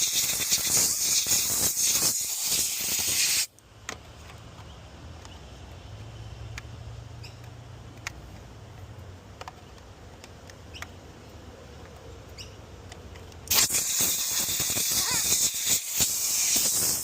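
Compressed air from a compressor's blow gun blasting through vacuum cleaner parts, a loud hiss that cuts off about three seconds in and starts again near the end. In the gap there is a faint low hum and a few light clicks of parts being handled.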